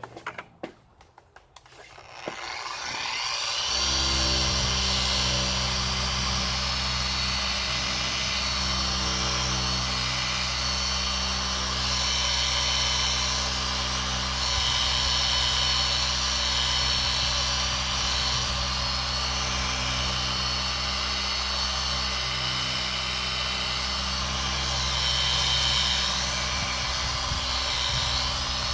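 Small electric polisher with a 3-inch microfiber pad, set to speed 3, starting up after a few clicks and then running steadily with an even hum while buffing a plastic headlight lens with ceramic polish.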